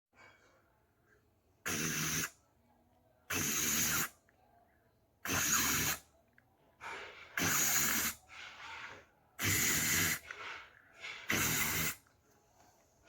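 Vocal sound effects made with the mouth: six loud bursts of rushing, spray-like noise, each well under a second and about two seconds apart, with softer breathy sounds in between.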